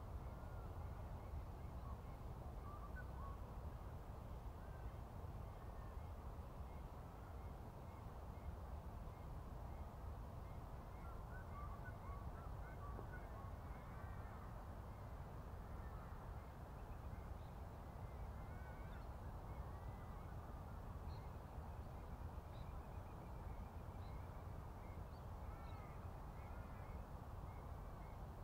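Birds calling faintly with short chirps and a regular ticking call, over a steady low rumble.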